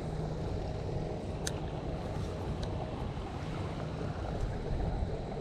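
Steady low rumble of wind buffeting the microphone, with a couple of faint clicks a second or two apart.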